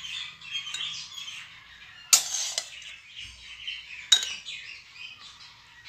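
A spoon clinks sharply twice against a ceramic bowl, about two and four seconds in, while the curry is spooned out. Birds chirp and twitter continuously in the background.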